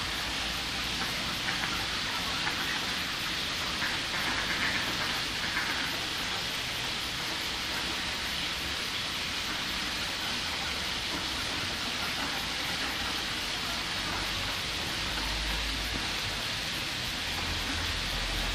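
Steady, even hiss of water, with a brief low rumble near the end.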